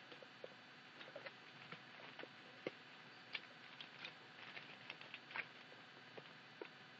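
Faint, irregular clicks, taps and short scratches of a knife's packaging being handled and opened by hand.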